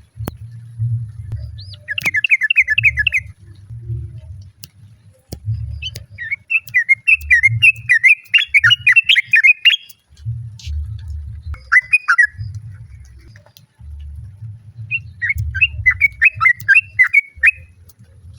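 Yellow-vented bulbul (trucukan) calling: four bursts of quick, bubbly chattering notes, the longest about four seconds, with a low rumble between and under them.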